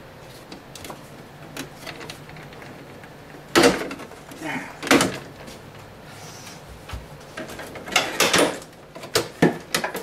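Contents and plastic parts being taken out of a refrigerator's fresh-food compartment. Irregular clunks and rattles of plastic and bottles, the loudest about three and a half seconds in, at five seconds, and twice more near the end.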